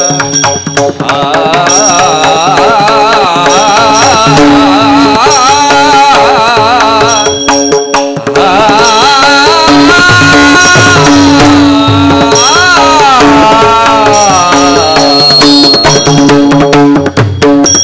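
Devotional kirtan singing: a male voice holds long, ornamented notes that slide and waver in pitch, without clear words, over a steady held drone and hand-drum strokes.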